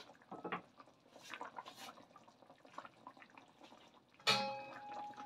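Rendang broth simmering in a steel wok with faint, scattered bubbling pops. About four seconds in comes a loud metallic clang that keeps ringing: the steel lid striking the wok as it is put on to cover the pot.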